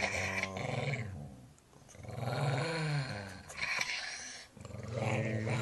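A cocker spaniel growling in several long, rumbling growls with short pauses between, the pitch rising and falling within one of them: a warning growl at the person's face.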